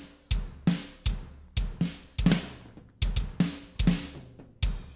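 Recorded acoustic drum kit played back through a DAW: kick drum, snare and toms in a steady beat, a hit about every half second or less, with cymbals washing over the top.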